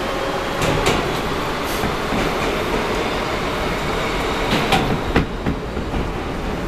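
R160B Siemens subway car running, heard from inside the car: a steady rumble of wheels on the rails, with sharp clacks about a second in and again around five seconds in.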